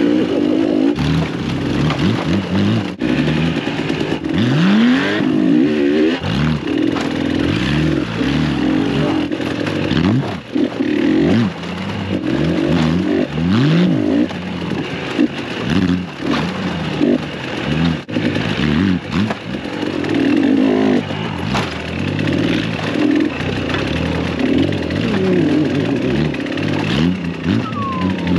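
Dirt bike engine revving up and down with the throttle as it rides over rough rock, with scattered knocks from the ground.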